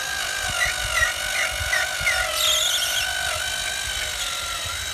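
Cordless drill running steadily at speed, spinning a foam polishing pad loaded with polishing compound against a plastic headlight lens; the motor whine holds one pitch, wavering slightly.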